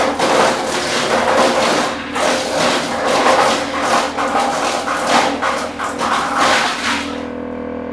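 Engine-driven wood chipper chipping wood: a loud, irregular crackling grind of wood being cut over the engine. About seven seconds in the chipping stops and the engine is left running steadily with no load.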